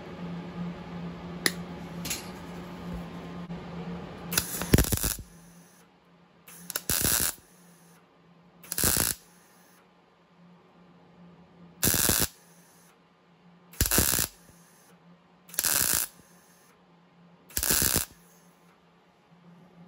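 MIG welder laying short stitch welds along a sheet-steel patch seam on a car's tail panel: about seven half-second bursts of crackling arc, roughly two seconds apart, starting about four and a half seconds in. Before the welding there is a steady hum with a couple of sharp clicks.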